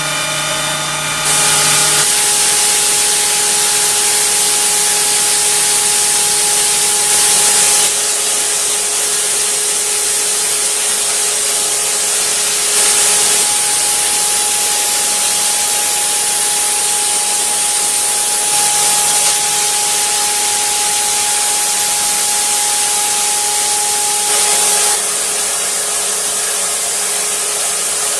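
4-axis CNC router spindle cutting with a small end mill, carving a hand shape from a blank on the rotary axis: a steady whine over the hiss of the cut, stepping up in loudness about a second in and swelling briefly a few times.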